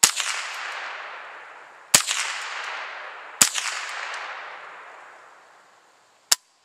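Three shots from a Ruger 10/22 carbine in .22 LR, fired semi-automatically about two seconds and then a second and a half apart, each ringing off in a long, fading echo. A short sharp click follows near the end.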